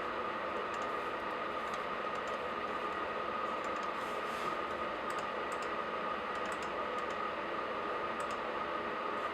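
Laptop keys tapped lightly and irregularly, a few scattered clicks at a time, over a steady background hiss with a thin steady whine.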